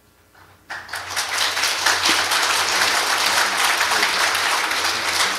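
Congregation applauding, starting suddenly under a second in and holding steady.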